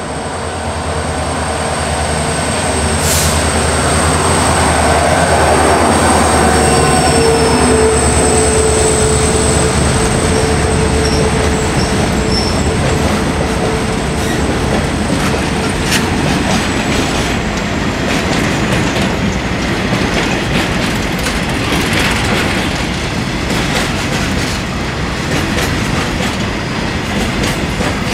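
WDG4 diesel-electric freight locomotive passing close by with its low engine drone, which fades after about ten seconds. Its rake of BCNA covered wagons then rolls past with the wheels clicking and clattering over the rail joints.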